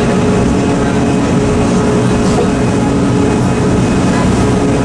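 Cog railway train running, heard from inside the passenger car: a steady drone of engine and running gear with a constant hum and low rumble.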